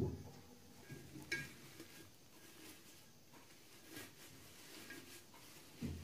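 A glass jar is set down on a wooden table with a dull thud, then fresh mint sprigs rustle and a light glass clink sounds about a second in as they are pushed into the jar. Another dull thud comes near the end.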